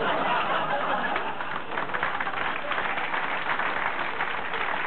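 Studio audience laughing at a punchline, with clapping joining in about two seconds in.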